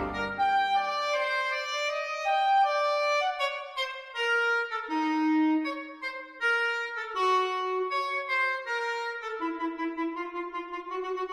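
Background music: a single melody played one note at a time, with no accompaniment underneath.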